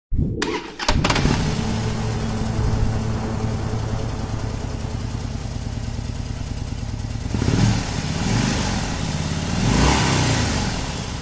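Motorcycle engine catching about a second in and idling steadily, then revved up and down a few times near the end.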